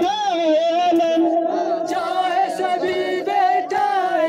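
Voices singing a Shia mourning lament (noha) together, unaccompanied, with a steady pitch held beneath the melody.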